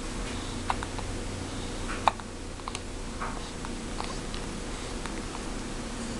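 A few short, soft clicks and taps over a steady low hum, one sharper click about two seconds in.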